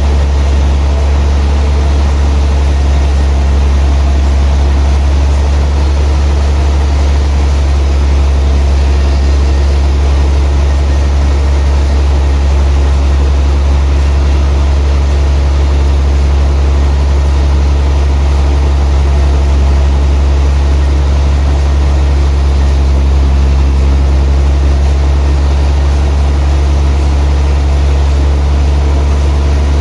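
Heavy sawmill machinery running with a loud, steady low drone that does not change.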